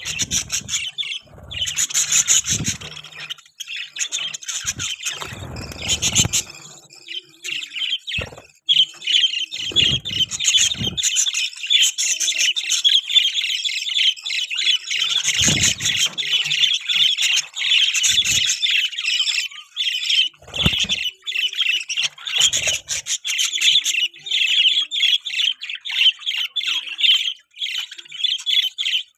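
A flock of budgerigars chirping and warbling without a break, with several birds calling over one another. Now and then there are short low thumps and rustles, as of birds moving or flapping in the cage.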